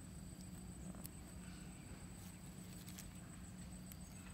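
Faint outdoor background: a steady low hum and a thin, steady high-pitched tone, with a few faint soft clicks.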